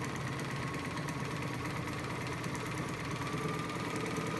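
Sears Kenmore 148 sewing machine running and stitching a multi-zigzag: the steady electric motor whine with the rapid clatter of the needle and stitch mechanism. The whine creeps up in pitch near the end as the machine speeds up.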